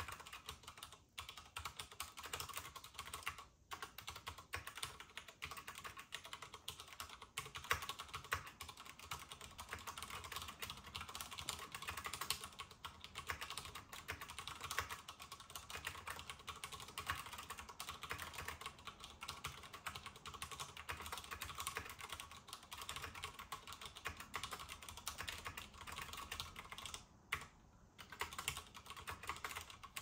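Fast, continuous touch typing on a compact mechanical keyboard with Cherry MX Brown switches, a quiet, rapid patter of key presses. It breaks off briefly twice near the start and for about a second near the end.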